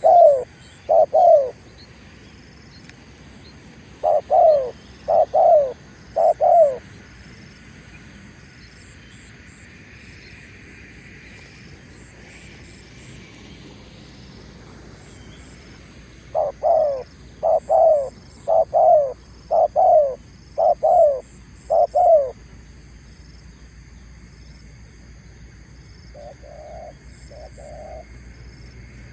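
Spotted dove cooing in repeated phrases of short, hoarse notes. There are two notes at the very start, a run of four a few seconds in, a longer run of seven midway, and a softer few near the end.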